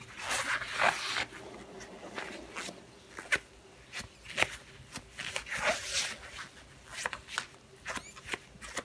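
Rubber-gloved hands folding and handling a silk scarf: irregular rustling of fabric against glove, with scattered short clicks and rubs.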